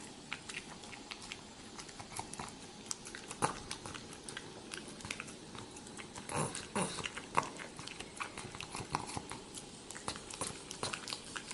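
A pet chewing or eating, with irregular soft crunches and clicks, a little busier about six seconds in.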